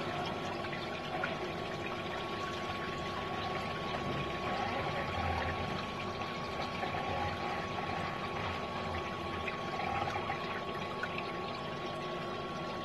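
Water pouring and running down the CNC enclosure's chip chute, washing metal chips out. A steady high whine runs under the water and cuts off near the end.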